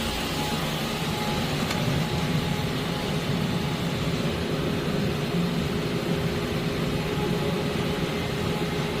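Doosan Puma MX2600ST mill-turn lathe's spindle spinning at high speed: a steady machine hum with a few even tones.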